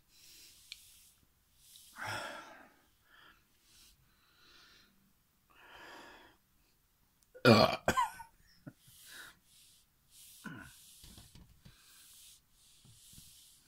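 A man burping: one loud, long belch about halfway through, with quieter breaths and throat noises before and after it.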